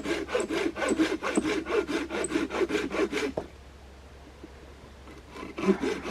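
Hand saw cutting through a maple log in quick, even strokes. The sawing stops about three and a half seconds in and starts again near the end.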